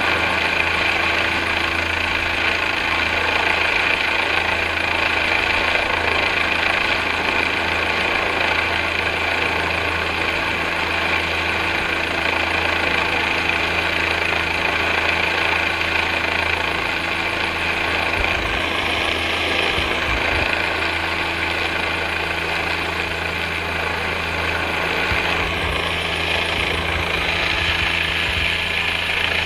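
Helicopter hovering overhead: a steady, unbroken running of turbine and rotor. In the second half, low gusty rumbles of wind on the microphone come and go.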